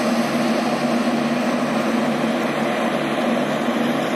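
Kanchenjunga Express pulling out: a steady diesel engine drone with a lower hum that throbs about twice a second.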